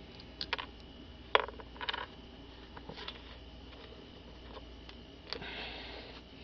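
A few scattered light clicks and clinks of small metal parts and hand tools being handled, as a starter's battery-cable nut and lock washer are taken off.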